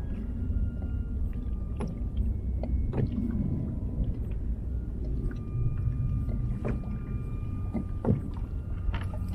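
A kayak on open water: water sloshing against the hull over a low wind rumble, with scattered knocks and a few brief high squeaky tones.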